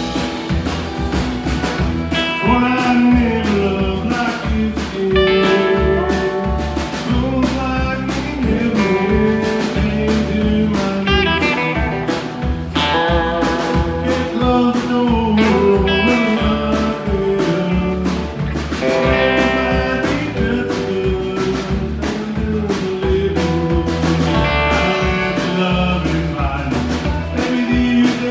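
Live country band playing: a lead on a Telecaster-style electric guitar over drums, bass and acoustic guitar, with a voice singing.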